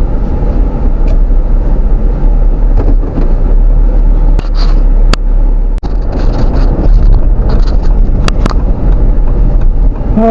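A Jeep driving along with steady engine and road rumble, heard from inside the vehicle, with a few sharp clicks about halfway through.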